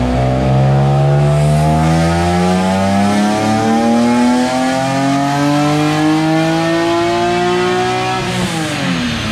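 BMW S54 straight-six engine in an E30 race car making a full-throttle pull on a chassis dyno, its pitch rising steadily for about eight seconds, then falling as the throttle is closed near the end.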